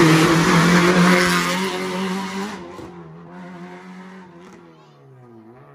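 Rally car passing close at high revs, then pulling away up the hill. About two and a half seconds in, the engine note drops away sharply and carries on faintly in the distance, its pitch dipping and rising with the throttle and gear changes.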